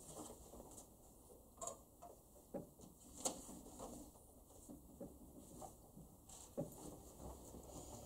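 Quiet room tone with faint scattered rustles and light clicks, a sharper click about three seconds in.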